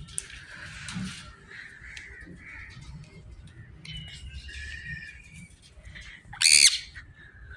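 Pet birds calling: soft chirps and short whistles, then one loud, harsh squawk about six and a half seconds in.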